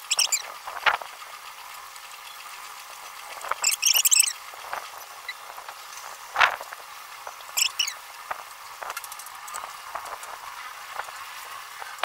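A sheet of paper being folded and creased by hand on a wooden table: irregular rustles and crinkles, with a few sharper crackles where a fold is pressed down.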